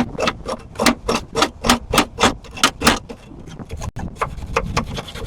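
Wire brush scrubbing rust off a steel car hood latch in quick back-and-forth strokes, about four a second. After a brief pause about three seconds in, the strokes resume more lightly.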